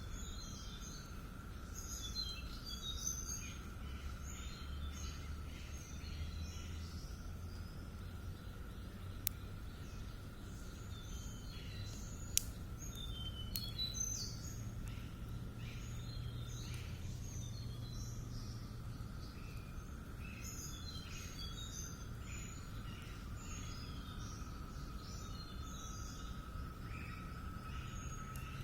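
Outdoor ambience of small birds chirping repeatedly, over a steady thin high drone and a low rumble. Three sharp clicks come through in the middle.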